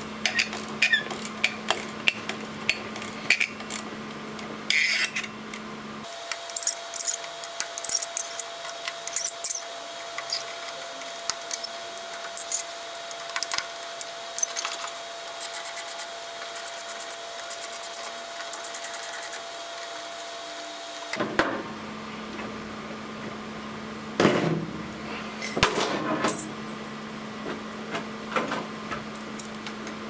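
Screwdriver working the long spring-loaded screws on the aluminium CPU cover plate of an IBM z9 mainframe processor board: scattered metallic clicks, taps and scrapes, with runs of fast, even clicking in the middle and a few louder knocks a few seconds before the end.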